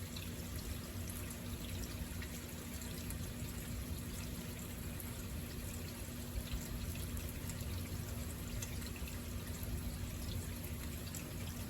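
Steady rain falling, with water running and dripping and small scattered drip ticks, over a faint steady low hum.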